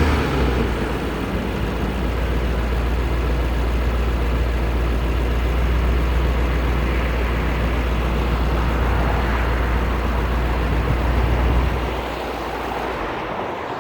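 Mercedes-AMG GT 63 S 4-Door's twin-turbo V8 idling with a steady low rumble, which drops off about twelve seconds in.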